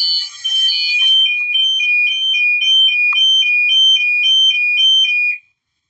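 Electronic door alarm sounding: a brief harsher tone, then a high and a low beep alternating about twice a second, cutting off abruptly near the end.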